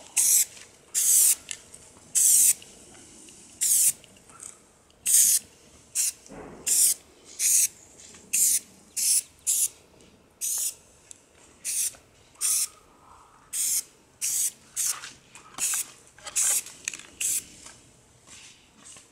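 Aerosol can of brown camouflage spray paint sprayed in many short bursts, a quick hiss about once or twice a second with short pauses between, as brown stripes are laid over the case.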